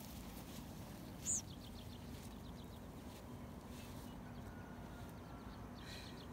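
Quiet outdoor ambience with a single sharp, high bird chirp about a second in, followed by a quick run of faint, high ticking notes, and a faint steady hum underneath.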